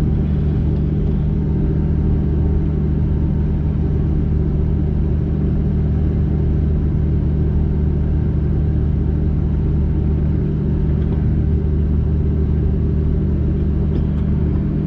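Case IH 7088 combine's diesel engine running steadily at low throttle as the machine creeps forward, an even drone with no change in pitch.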